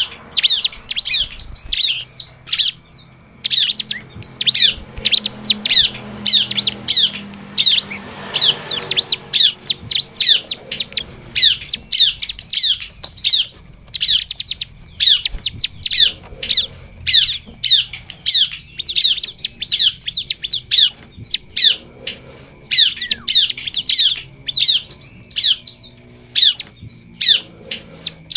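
Bar-winged prinia (ciblek) singing in a cage: long runs of rapid, sharp downslurred chirps, a few a second, broken by brief pauses, with a thin steady high tone behind.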